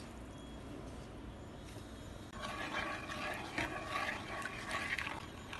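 Spatula stirring granulated sugar and water in a nonstick pan, an irregular gritty scraping that starts about two seconds in, over a low steady background hum.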